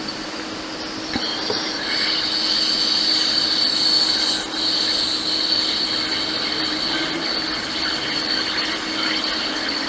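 Hot air rework station blowing on a circuit board to desolder a capacitor: a steady hiss of air with a high whine, getting louder about a second in.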